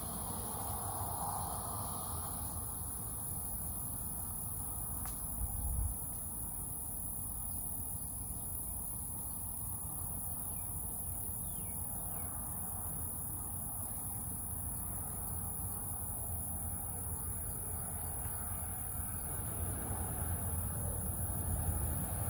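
Steady high-pitched drone of insects such as crickets over a low outdoor rumble, with a brief thump about five and a half seconds in.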